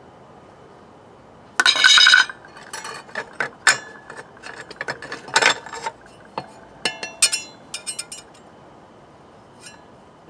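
Metal clutch parts of a BMW K75 clinking and clanking against each other as they are handled in the clutch housing: a loud ringing clatter about a second and a half in, then a run of lighter clinks and taps that stop about eight seconds in.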